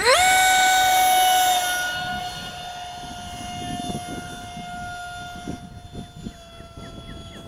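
A 50 mm electric ducted fan (CS 11B fan on a stock motor) in an RC F-16 jet spools up sharply into a high, steady whine. It is loudest for the first second and a half, then carries on at the same pitch but quieter.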